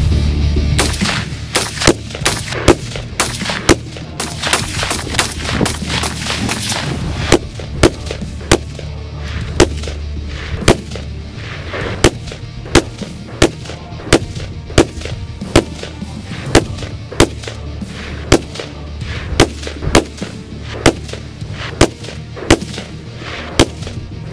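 Semi-automatic AR-15 rifle firing a long string of single shots into a turkey target, fast in the first few seconds, then a steady one to two shots a second, over background music.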